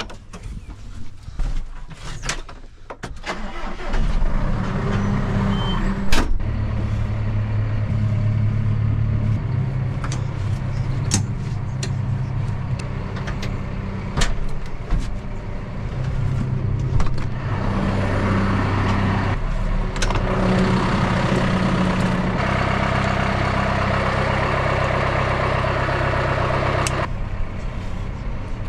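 Clicks and knocks from the tractor cab door and latch, then a John Deere tractor's diesel engine starts about four seconds in and runs steadily, heard from inside the cab.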